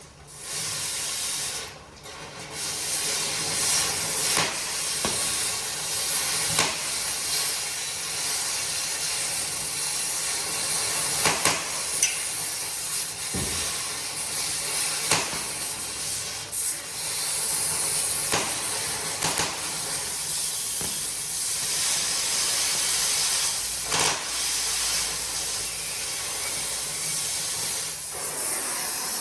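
Oxy-fuel cutting torch hissing steadily as it burns through a steel exhaust clamp, with sharp crackles and pops from molten metal and slag. The hiss starts about half a second in, dips briefly near two seconds, then runs on.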